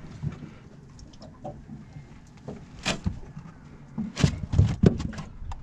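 Scattered clicks and knocks from hands handling a caught flathead and a soft plastic lure on a boat deck, with a sharp click about three seconds in and a cluster of louder knocks near the end.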